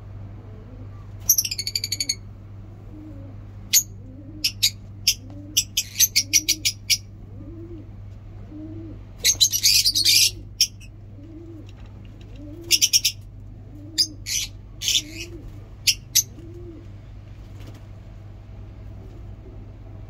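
A flock of lovebirds (peach-faced, Fischer's and masked) giving shrill, rapid chirping bursts that come and go, loudest about a second in and around the middle. Under them is a soft, low cooing call, repeated about one and a half times a second through most of the stretch, over a steady low hum.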